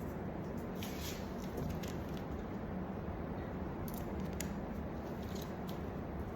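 Steady low background hum with faint, scattered clicks and rustles over it.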